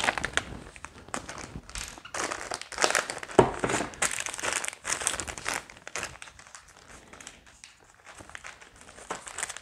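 Plastic packaging crinkling and rustling in irregular bursts as small guitar parts are unwrapped and handled, with one sharp click about three and a half seconds in; the rustling thins out in the second half.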